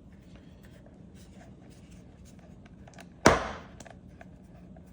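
Faint clicks and rustles of small objects being handled, with one sharp knock about three seconds in, like something hard set down on a surface.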